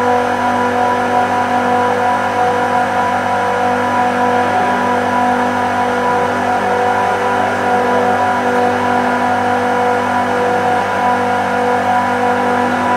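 Screw compressors of a refrigeration rack running: a steady machine hum made of several held tones over a noisy whir.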